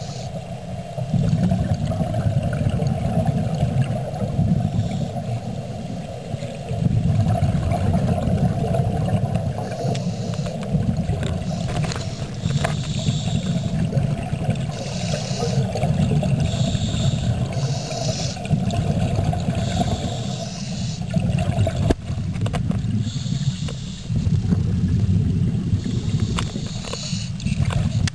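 Underwater sound of a scuba diver breathing through a regulator: exhaled bubbles rumble in long surges every several seconds, with bursts of higher hiss in between.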